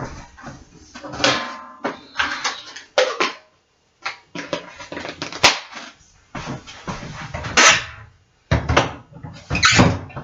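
Clean dishes, glasses and cutlery clinking and clattering as a dishwasher is unloaded, with cupboard doors and the dishwasher racks knocking in between. The handling comes in irregular bursts with short pauses, and a few sharp clinks stand out.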